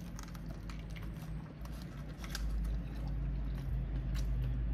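Biting into a crispy fried chicken fillet wrapped around mac and cheese, then chewing with the mouth closed: many small crunches of the breading.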